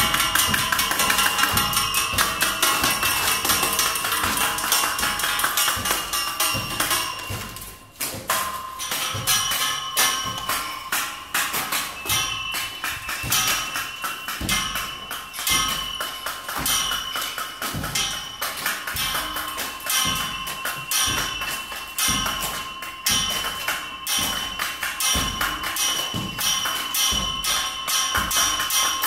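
Metal being tapped and struck by hand, ringing with steady high tones. There is a dense run of rapid taps at first that breaks off about eight seconds in, then a string of repeated strikes with the ringing carrying on between them.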